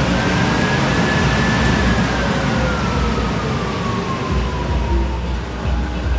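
A motor vehicle going by with a steady rushing noise. A single whine rises slightly, then falls slowly in pitch over about four seconds as it passes.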